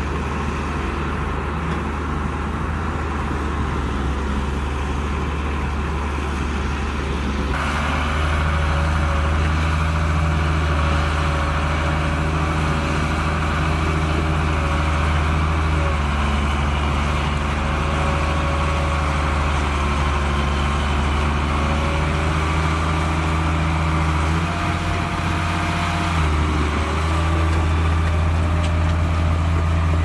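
Small crawler bulldozer's diesel engine running steadily under load as it pushes mud through shallow water. The sound grows louder about a quarter of the way in and thins out briefly toward the end.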